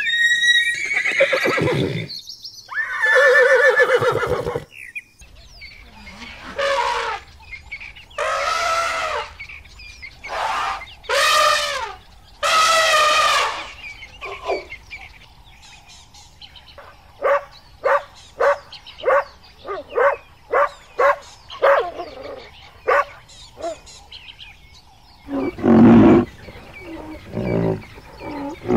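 Horses whinnying: two long, quavering whinnies in the first few seconds. Further animal calls follow: a run of short calls in the middle and a loud, low call near the end.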